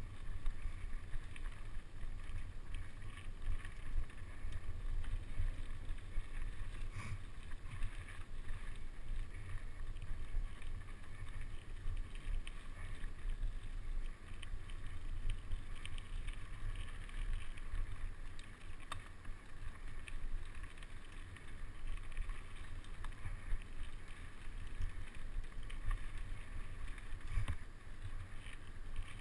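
Mountain bike riding over a rough dirt trail: a constant low rumble from the tyres and wind buffeting the microphone, with frequent small rattles and clicks from the bike.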